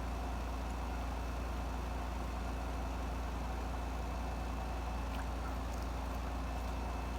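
A steady low mechanical hum with no change in level, like an engine idling.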